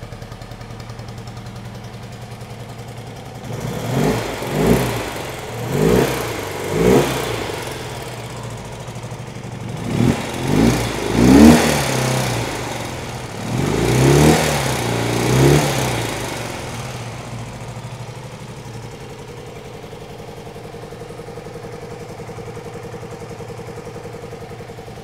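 1972 BMW R75/5's air-cooled flat-twin engine idling, then revved in a series of short throttle blips before settling back to a steady idle. It is running on a newly fitted electronic ignition, and the owner says it runs much better.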